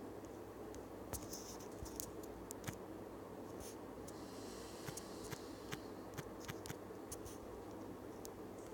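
Faint, sharp taps on a smartphone's on-screen keyboard over a steady low hiss, a few scattered ones early on and then a quick run of about six as a word is typed.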